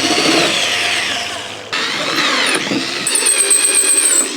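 Power drill running a 2-inch hole saw, cutting holes in 10 mm plywood; the drill's whine falls in pitch, breaks off suddenly about a second and a half in, then resumes.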